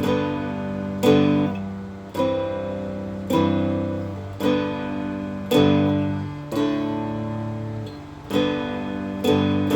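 Handmade guitar strummed in slow chords, about one strum a second, each chord ringing and fading before the next.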